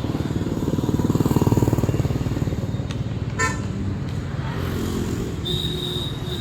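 Motor vehicle engine running close by with a steady low rumble that swells about a second in. A short vehicle-horn toot sounds about three and a half seconds in.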